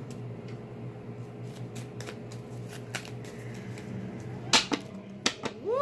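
Tarot cards being handled in the hands, with faint rustling and a few light clicks, two sharper ones about a second apart near the end, over a low steady room hum. A voice begins a rising "ooh" right at the end.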